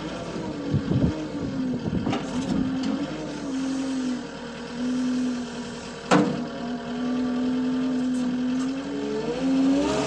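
Caterpillar 279D compact track loader's four-cylinder diesel engine running as the lift arms lower the bucket, its pitch wavering up and down. A sharp clunk about six seconds in, and the engine revs up near the end.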